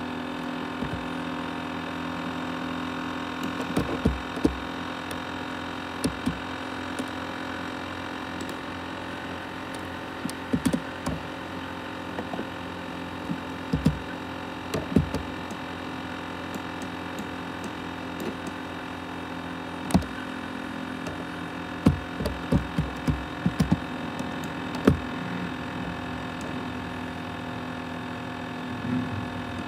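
Asus X543UA laptop running with a steady hum of several fixed tones from its cooling fan and hard drive. Irregular sharp clicks and knocks are scattered through, in clusters.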